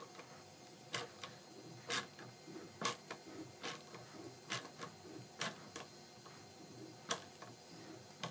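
Ratchet wrench clicking about once a second, with a few softer clicks between, as it is wound back and forth driving a bolt and self-tapping thread insert into a worn hole in an aluminium moped brake plate; the insert is stiff to turn.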